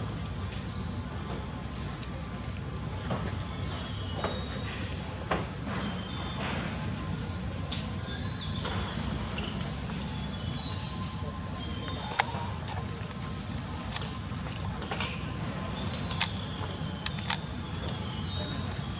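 Steady, high-pitched drone of an insect chorus, with a low rumble underneath. A few sharp clicks are scattered through, the loudest in the second half.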